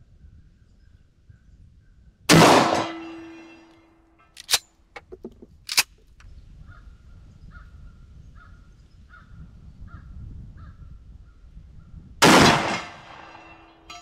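Two shots from a pump-action Mossberg shotgun, about ten seconds apart, each followed by the steady ring of the steel gong being hit downrange, fading over a second or two. Between the shots come sharp metallic clacks as the pump action is worked.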